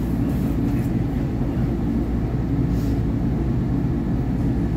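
SEPTA Market-Frankford Line train moving slowly along the track, heard from inside the front car: a steady low rumble of the car's motors and wheels on the rails.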